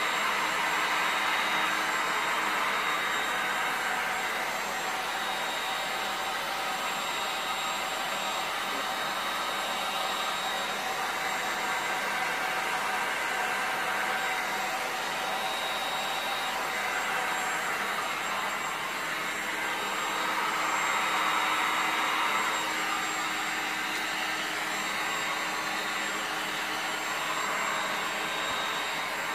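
Handheld electric heat gun blowing steadily, its fan and hot-air rush with a faint high whine, swelling a little as it is moved over the resin.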